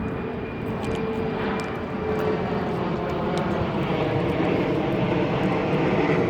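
A steady mechanical drone with a faint steady hum in it, slowly growing louder.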